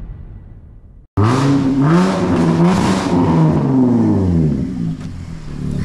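Car engine revving sound, as played by a ride-on toy car's speaker or laid over as an effect. It starts suddenly about a second in and swings up and down in pitch several times, after background music fades out.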